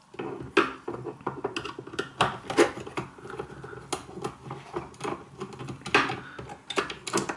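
Screwdriver taking out the screws that hold the solenoid valve in a Triton Enrich electric shower's plastic housing: irregular small clicks, scrapes and knocks of metal and plastic, a few of them sharper.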